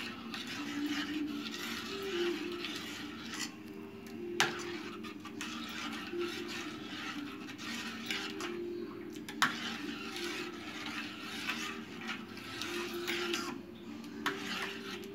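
Metal spoon stirring thin tamarind-mint pani puri water in a bowl: continuous swishing and scraping, with sharper clinks of the spoon against the bowl about four seconds in, about nine seconds in and near the end.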